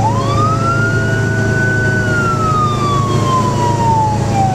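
Fire engine's siren wailing, heard from inside the cab: the pitch climbs quickly at the start, holds high for about a second, then falls slowly through the rest. A steady low engine drone runs underneath.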